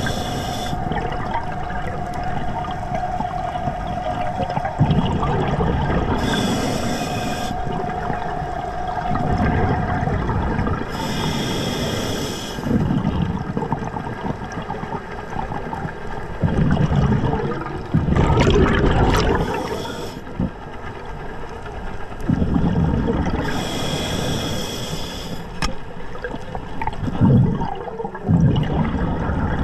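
Scuba diver breathing through a regulator underwater: a hiss on each inhalation about every five to six seconds, then rumbling, gurgling bubbles on each exhalation. A steady hum runs for about the first ten seconds.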